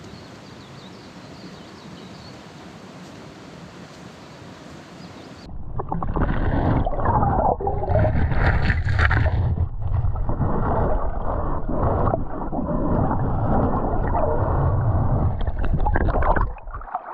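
Steady rush of river water. About five and a half seconds in, it gives way abruptly to loud, close water sloshing and gurgling with a low rumble, which lasts about eleven seconds and stops shortly before the end.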